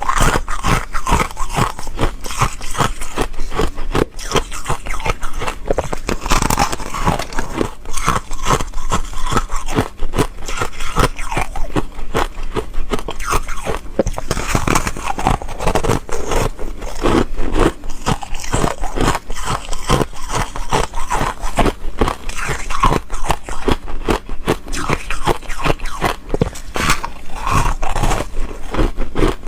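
Foam ice being bitten and chewed close to the microphone: a dense, unbroken stream of crisp crunches with a scraping texture.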